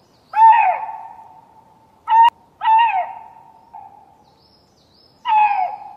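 A lynx giving mating calls: four short calls that each rise and then drop in pitch and ring on in an echo, the second one cut short. This is the male's song calling for a female. Faint high bird chirps sound between the calls.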